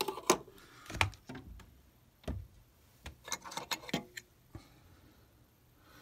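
Irregular clicks and clinks of small metal objects being handled and knocked together while rummaging for a brass Zippo lighter insert, with a cluster of clinks past the middle.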